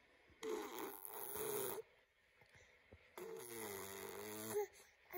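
A baby vocalizing twice, a short sound and then a longer one held at one pitch that lifts at its end.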